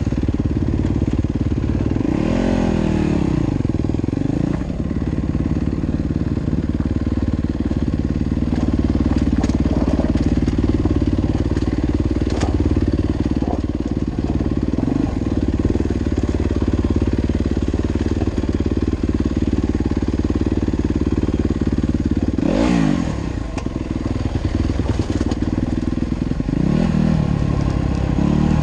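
Dirt bike engine running under way, its pitch sweeping up and down as the throttle is worked, with sharper revs about two seconds in, again near 23 seconds and near the end.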